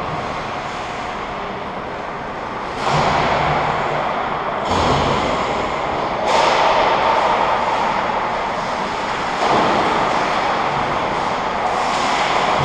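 Ice rink ambience: a steady, rushing noise that grows louder in sudden steps about three, five, six and nine seconds in.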